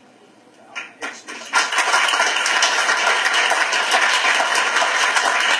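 Audience applause: a few claps about a second in, then loud, steady clapping from many hands.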